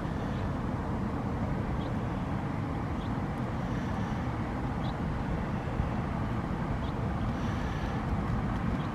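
Steady low outdoor rumble with a faint steady hum underneath and a few brief, faint high chirps scattered through.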